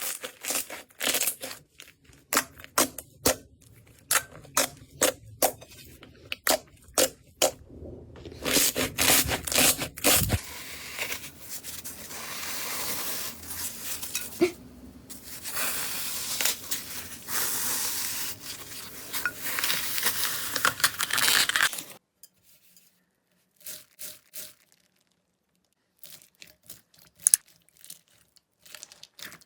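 Slime being worked by hands. For the first ten seconds or so there is a rapid run of sharp sticky pops and clicks, then a longer continuous stretching, tearing rustle, and after about twenty-two seconds only a few faint crackles.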